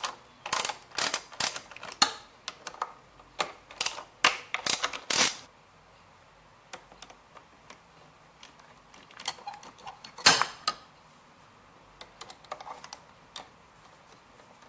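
Ratchet wrench clicking in quick runs as a long socket extension turns a carburetor mounting nut on a small generator engine. After about five seconds the clicking thins to a few light ticks, with one sharp clack a little past ten seconds.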